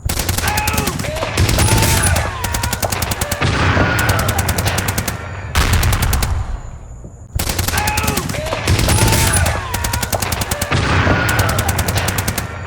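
Automatic gunfire in rapid, repeated bursts, mixed with people screaming and yelling. The whole sequence starts over about seven seconds in.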